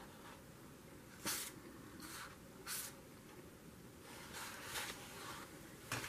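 Faint rustling of paper journal pages being handled and lifted: a few short brushes between one and three seconds in, then a softer, longer rustle at about four and a half seconds.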